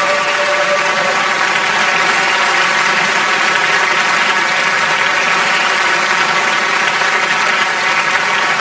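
Audience applauding loudly and steadily, with music faintly underneath.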